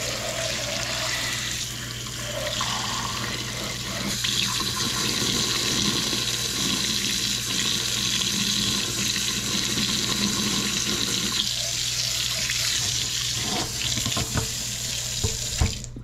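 Kitchen faucet running into a stainless steel sink and down the garbage disposal drain, rinsing it out. The steady rush of water grows louder about four seconds in and is shut off near the end.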